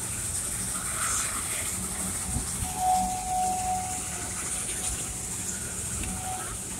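The Dixiana, a geared Shay steam locomotive, hissing steam while the train rumbles along the track, with a short high tone about three seconds in.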